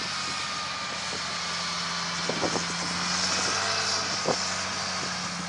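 Emergency-service hovercraft's engine and propeller running in a steady drone with a held whine as it crosses the ice. A sharp knock about four seconds in.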